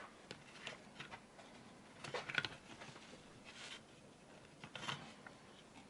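Faint handling noises of small parts being worked by hand: scattered light clicks and a few short rustles.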